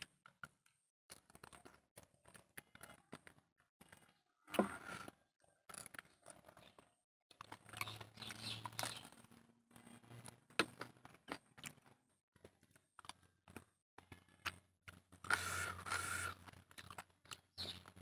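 Close-up eating sounds of a man gnawing a chicken leg bone: chewing, crunching on the bone and wet mouth sounds as he sucks his fingers, in irregular bursts with short quiet gaps.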